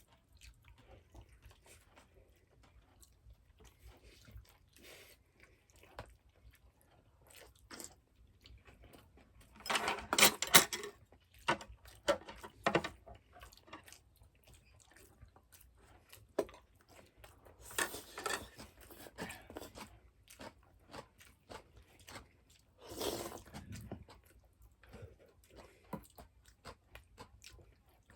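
A person chewing and crunching food at close range, with scattered small clicks and three louder crunching bouts spread through the clip.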